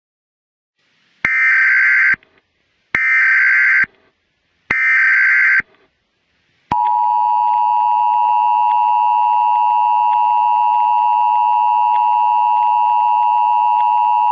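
Emergency Alert System signal: three short bursts of digital header data tones, then the steady two-tone EAS attention signal.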